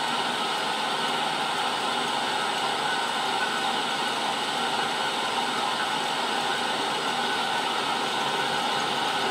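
Milling machine running steadily while drilling a hole in a hinge clamped in its vise.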